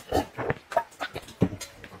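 A person drinking from a bowl: a few short, separate gulps and swallows.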